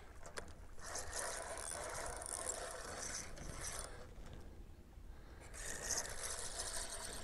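Fishing reel being cranked in two spells with a short pause between, winding in line on a hooked catfish.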